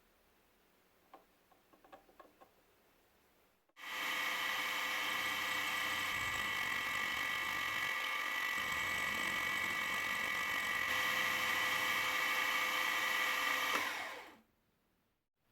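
A few light clicks, then a small machine-tool motor switched on, running at a steady speed with a high whine for about ten seconds, then switched off and running down.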